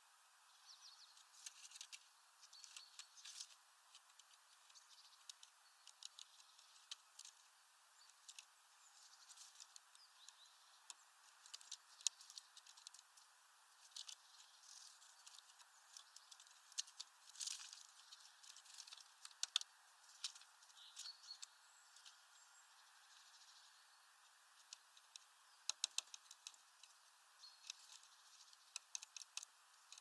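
Faint, irregular tapping and clicking of tits' beaks and feet on a metal feeder bar and a mesh bag of food as they peck and land, with clusters of quick taps at times.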